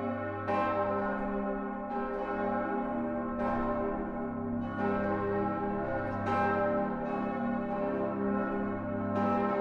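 Church bells ringing a peal, a fresh strike about every second and a half over the long hum of the strikes before.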